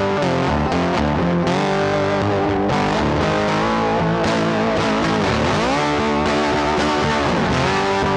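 Music led by an electric guitar, with notes bent down and back up about halfway through and again near the end.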